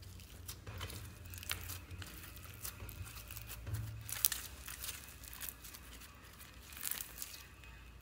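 Floam slime full of foam beads being squeezed and pressed between the hands: irregular crackling and crunching of the beads in the sticky slime, with louder crackles about four seconds and about seven seconds in.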